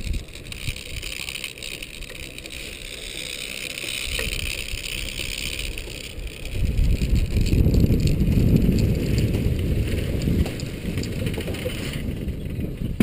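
Wind rushing over a body-worn action camera's microphone during a canyon swing ride, with a low buffeting rumble that grows much louder about halfway through and eases near the end.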